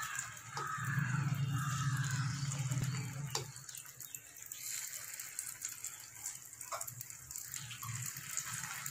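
Batter spooned into the hot, oiled cavities of a paniyaram pan: a soft sizzle, with a few light clicks of the spoon against the pan. A low hum runs through the first three seconds.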